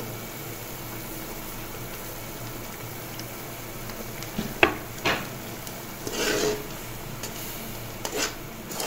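Spiced tomato-onion masala simmering and sizzling in a metal pot, then a slotted metal spatula knocks twice against the pot a little past halfway and scrapes through the masala as it is stirred, with a few more knocks and scrapes near the end.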